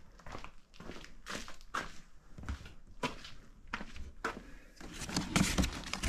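Footsteps on a concrete floor with light scuffs and knocks. Louder bumping and rustling come near the end as things are handled close to the microphone.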